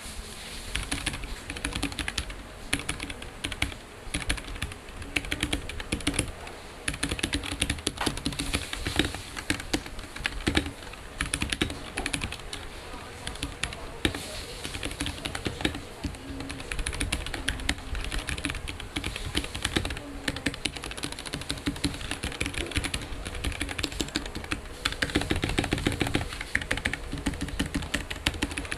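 Continuous fast typing on a Kemove 61 Shadow 60% mechanical keyboard: a dense, unbroken stream of key clicks.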